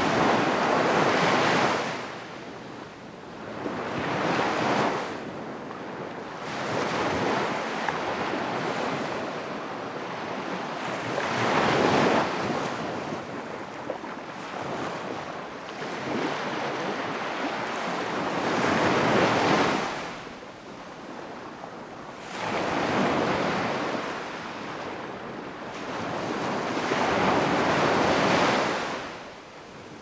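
Ocean surf breaking and washing ashore, swelling and easing in about eight slow surges, each rising and falling over a few seconds.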